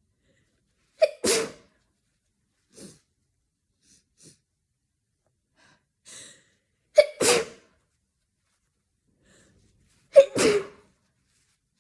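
A person with a bad cold sneezing three times, several seconds apart, each sneeze a short sharp catch followed at once by the louder main burst. Faint breaths come between the sneezes.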